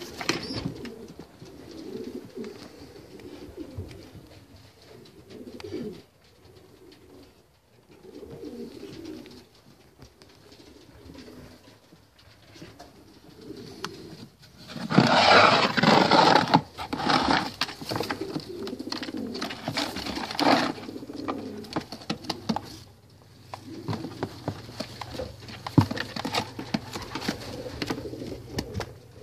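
Racing pigeons cooing in a loft, low repeated coos coming and going, with a louder, noisier stretch of several seconds about halfway through.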